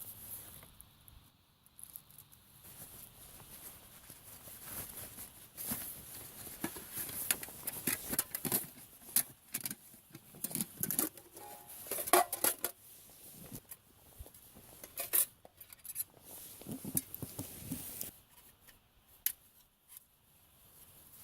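Small objects being handled: irregular clicks, clinks, scrapes and rustles, busiest through the middle and thinning out near the end.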